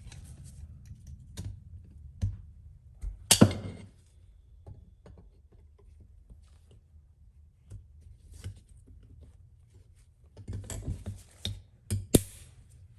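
Snap ring being fitted back onto an NP205 transfer case rear output shaft with snap-ring pliers: scattered small metal clicks, with two sharper clacks, one about three seconds in and one near the end.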